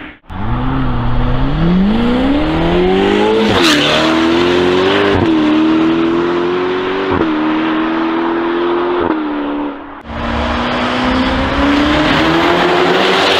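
Ferrari Portofino's twin-turbo V8 with a Novitec exhaust accelerating hard, rising in pitch with quick upshifts about every two seconds. A sharp crack sounds at the first shift. Near the end, a second run climbs steadily in pitch.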